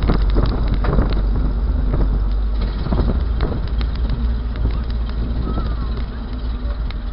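Low, steady rumble of old car engines idling and rolling slowly by, with scattered knocks and rattles.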